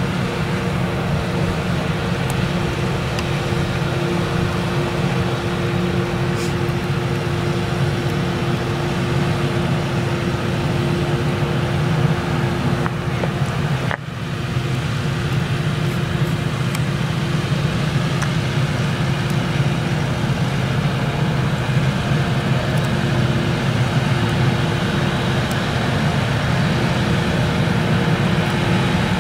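Claas Jaguar 970 self-propelled forage harvester chopping maize under load, its MAN engine running steadily together with the tractor pulling the trailer alongside. A steady drone with a held tone, dipping briefly about halfway through.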